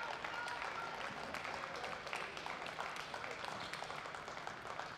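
Table tennis rally: the ball clicking off the rackets and the table in a quick irregular run of sharp ticks, with a brief shoe squeak on the court floor early on.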